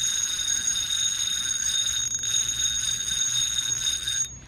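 Spinning reel's drag slipping and buzzing steadily as line is pulled off against a lure snagged in weeds, cutting off suddenly near the end.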